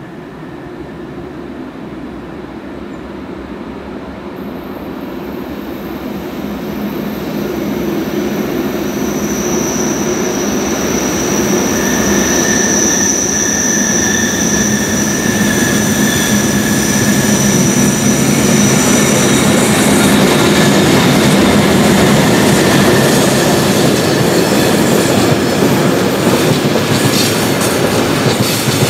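Freight train hauled by three ÖBB class 1144 electric locomotives, approaching and growing steadily louder. A high steady squeal runs through the middle, and rail clatter and wheel clicks come in near the end.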